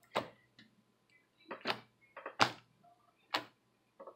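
Sticky homemade glue-and-cornstarch slime being kneaded and pressed on a table, giving a string of short, sharp sticky clicks at irregular intervals, about seven in four seconds.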